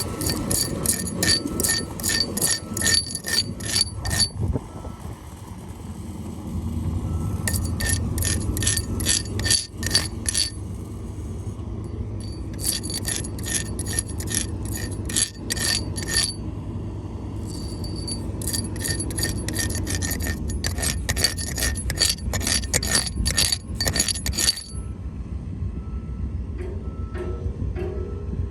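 Welding arc crackling in four bursts of a few seconds each, stopping and restarting between them, over a steady low hum.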